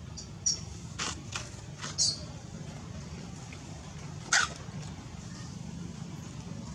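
Monkey cries: a few short, high-pitched squeals in quick succession, then a single louder one about four seconds in, over a steady low background hum.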